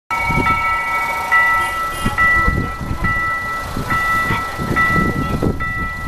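Electronic level-crossing warning bell ringing in a steady two-tone pattern that repeats a little faster than once a second, warning of an approaching train. An irregular low rumble runs underneath.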